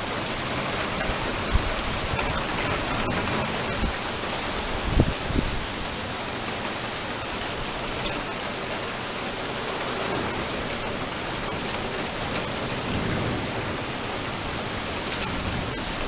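Heavy thunderstorm rain pouring down steadily. A few brief low thumps come through, the largest about five seconds in.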